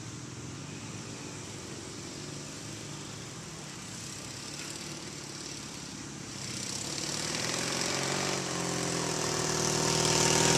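Motorcycle engine running, faint at first, then growing louder as the bike rides toward the listener from about six seconds in, its engine speed rising and dropping a little along the way.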